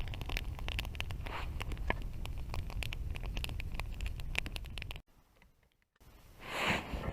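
Campfire crackling with many small sharp pops over a low steady rumble. It cuts off abruptly about five seconds in, and a louder rustling scrape starts near the end.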